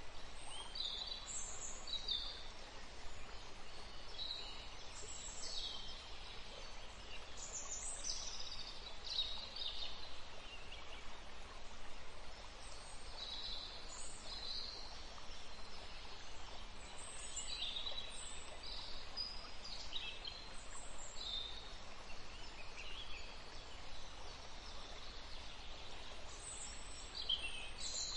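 Small songbirds chirping and singing, short high calls coming every second or so, over a steady low hiss of forest ambience.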